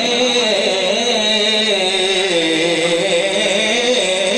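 A man singing a naat, an Urdu devotional poem, solo into a microphone, drawing out long wavering notes with melodic turns.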